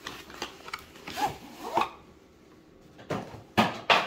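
Cardboard packaging being handled and a hard-shell carrying case slid out of it: a series of short scraping and rustling sounds, the loudest two close together near the end.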